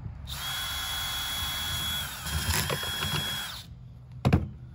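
Cordless drill boring a 5/8-inch hole through a PVC pipe fitting, running steadily with a high whine for about three and a half seconds, then stopping. A single sharp knock comes near the end.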